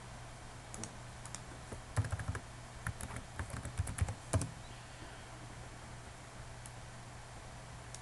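A few light clicks, then a quick run of keystrokes on a computer keyboard as a short word is typed, over a low steady hum.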